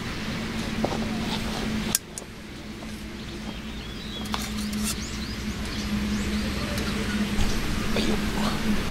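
Wind rumbling on the microphone under a steady low hum, with faint bird chirps and a sharp click about two seconds in.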